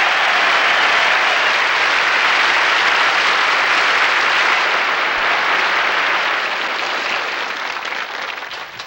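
Audience applauding, steady at first, then thinning out and dying away near the end, with a few last claps.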